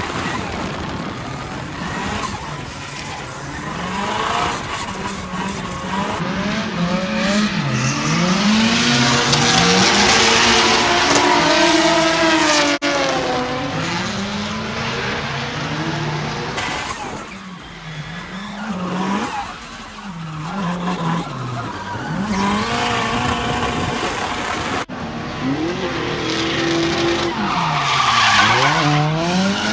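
Drift cars sliding: engines revving up and down with tyres squealing, loudest about a third of the way in. The sound is cut together from several short clips, the first from on board the SR20-powered Nissan Bluebird.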